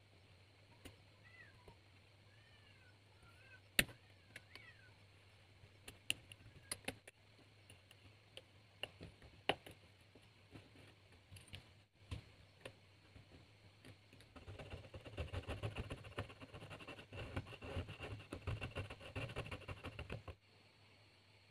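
Hobby knife blade working a thin PVC strip on a cutting mat: scattered light clicks and taps, then, past the middle, about six seconds of quick repeated scraping as the strip is shaved. The scraping stops suddenly near the end.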